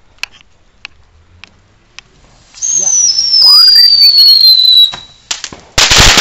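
A firework whistling loudly for about two seconds, its pitch sliding steadily down, then a loud bang about six seconds in as it bursts into sparks. A few faint pops of other firecrackers are heard before the whistle starts.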